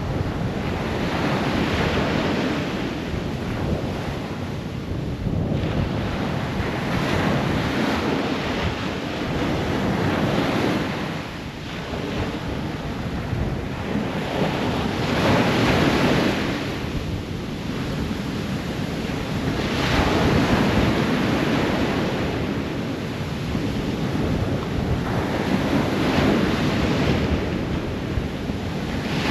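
Ocean surf breaking on a shore, a steady wash that swells and falls back about every four to five seconds.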